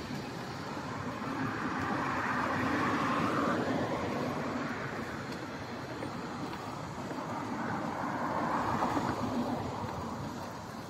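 Road traffic noise, heard while moving along a wide city road: a steady rush that swells twice, about two to four seconds in and again around eight to nine seconds.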